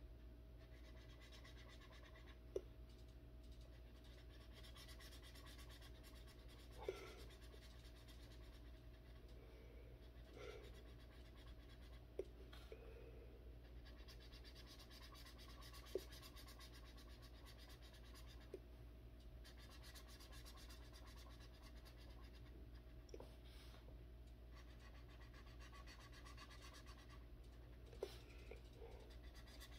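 Faint scratching of a felt-tip marker being rubbed back and forth over coloring-book paper, broken by a few sharp taps.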